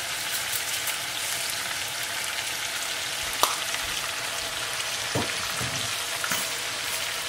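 Tuna steaks sizzling steadily in oil and a pan sauce in a skillet, with one sharp click about three and a half seconds in and a couple of softer knocks a little later.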